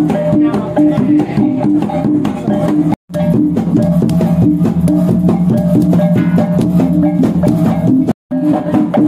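Large bronze bossed gongs hanging in a frame, struck with cloth-padded beaters: Dayak ritual gong music, several low pitches sounding over and over in a steady rhythm. The sound breaks off abruptly twice, about three seconds in and again near the end.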